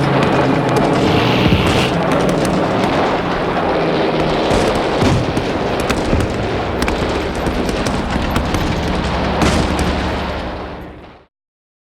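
War sound effect: dense gunfire and booming explosions over low steady tones, fading out about eleven seconds in to silence.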